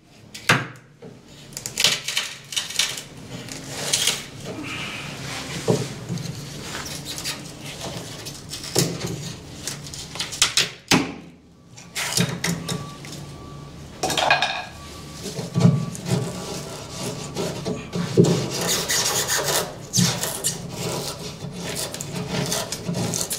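Hand blade scraping and cutting through foam core and fiberglass, a run of irregular scrapes, rubs and small knocks as the foam is dug out of a notch.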